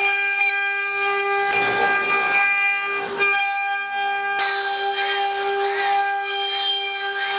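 CNC router running: its spindle whines at a steady pitch, with a rougher stretch of cutting noise a second and a half in. From about four and a half seconds, repeated rising and falling whines join it as the machine's axes speed up and slow down.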